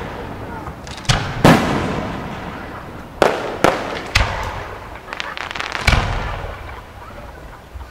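Aerial firework shells bursting: about six sharp booms, some in quick pairs, each trailing off in a long echoing rumble, with a brief crackle about six seconds in.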